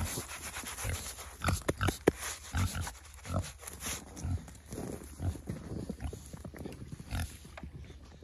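Pigs grunting in short, irregular bouts, mixed with sharp clicks, busiest in the first half.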